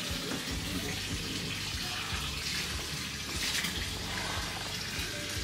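Water running steadily, a rushing noise that swells briefly about three and a half seconds in.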